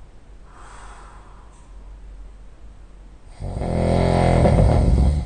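Heavy snoring of a sleeping person: a faint breath, then a loud, low snore of nearly two seconds that cuts off abruptly near the end.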